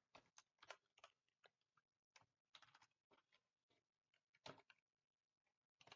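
Near silence with faint, scattered computer keyboard key clicks as code is typed, a small cluster of them about four and a half seconds in.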